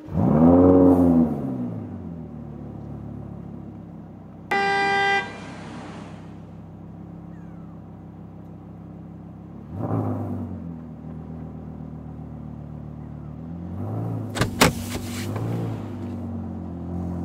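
Dubbed car sound effects: an engine revs up and falls back, a horn honks once briefly, and the engine idles steadily. It revs again briefly, and a few sharp clicks come near the end.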